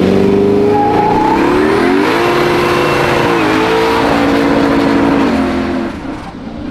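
Twin-turbo 5.3-litre LS V8 in a 1970 Chevelle SS held at high revs during a burnout, over a hiss of spinning, smoking rear tyres. The engine note steps up about two seconds in, dips back twice, and fades near the end.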